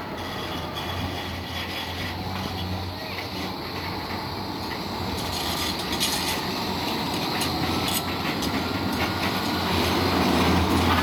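Bombardier Flexity 2 tram approaching on street track and passing close by, its running noise growing steadily louder, with a faint whine in the last few seconds.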